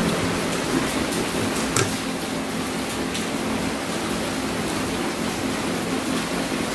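Steady hissing room noise with a low hum. A few faint clicks and crunches come through it from fried catfish being picked off a stainless steel plate by hand and chewed.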